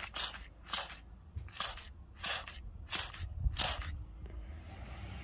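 Plastic trigger spray bottle spritzing soapy water: six quick hissing sprays, roughly one every two-thirds of a second, stopping about four seconds in. The spray is a leak test over a glued seam on an inflatable hot tub.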